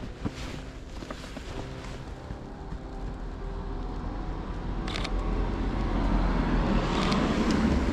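A car approaching on a snow-covered street, its engine and tyre noise growing steadily louder through the second half. A single sharp camera shutter click about five seconds in.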